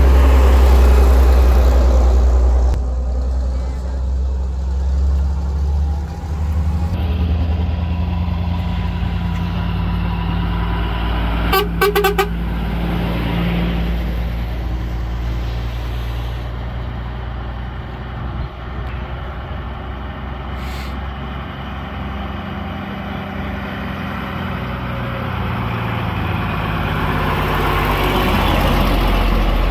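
Engines of old vehicles running as a procession drives past, one passing loudly at the start, with a brief horn toot of a few quick pulses about twelve seconds in.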